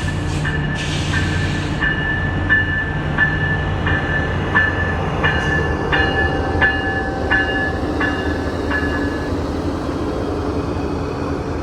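A VIA Rail passenger train running with a bell ringing, about three strokes every two seconds, that stops about nine seconds in. Underneath is a steady low rumble from the train, strongest in the first couple of seconds.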